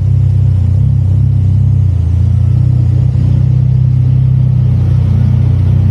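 Kenworth C500 heavy truck's diesel engine running steadily with a deep, even drone.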